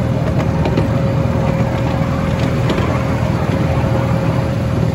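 Miniature railway locomotive's engine running steadily as the train rolls along the track, a constant low hum with a thin steady whine above it.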